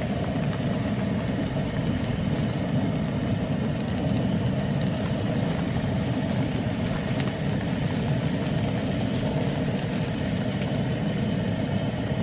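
Battered bass fillets deep-frying in hot oil in a Tembo Tusk Skottle pan: a steady sizzle with scattered small pops and crackles, over a steady low rumble.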